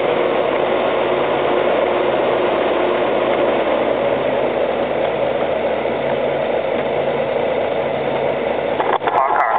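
Honda GL1800 Gold Wing's flat-six engine running steadily at low, walking-to-jogging speed, picked up by a camcorder mounted on the motorcycle's handlebars, with a steady rushing noise over it.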